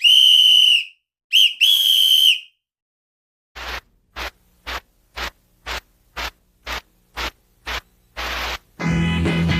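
Three loud blasts on a whistle, a long one, a short one and another long one, each held at one steady high pitch. After a pause come nine evenly spaced percussive hits, about two a second, then a longer noisy hit, and upbeat band music starts near the end.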